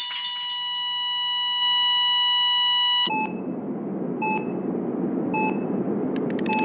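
A steady electronic beep tone for about three seconds that cuts off suddenly, followed by short electronic beeps about once a second over a hissing hum, with a quick flurry of clicks near the end.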